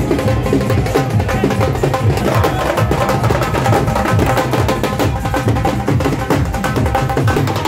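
Dhol drums beaten with sticks in loud dance music, a dense, steady stream of sharp drum strokes over a heavy low beat.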